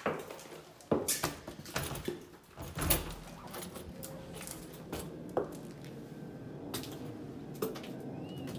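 Sharp knocks and clicks of footsteps and handling while walking through a doorway onto a balcony, thickest in the first three seconds, then a steady outdoor background hum with a few fainter knocks and a faint short chirp near the end.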